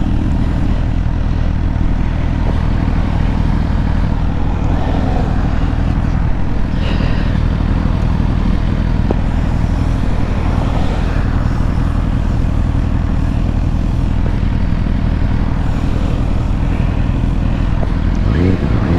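Ducati motorcycle engine running steadily at road speed under a constant rush of wind and road noise.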